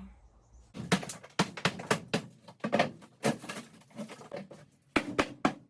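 Irregular knocks and clatters of demolition work inside a caravan's interior, with a quick run of sharp knocks near the end.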